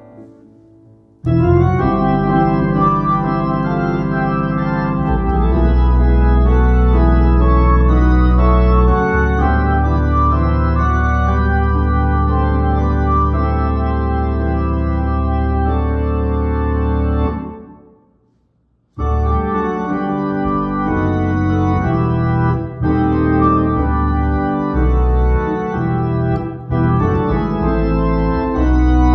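Hammond organ playing sustained chords over a deep bass, starting about a second in. It fades out to a second of silence around eighteen seconds in, then comes back with more broken-up chords.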